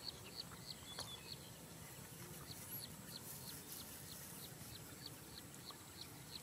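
A bird calling: a faint, steady series of short, high, falling chirps, about three a second.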